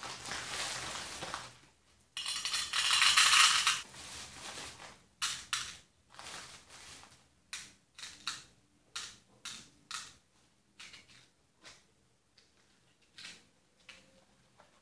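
A thin plastic bag rustling and crinkling loudly as a hand digs out small hard candies, then a string of short clicks as the candies are dropped a few at a time into a small favour container.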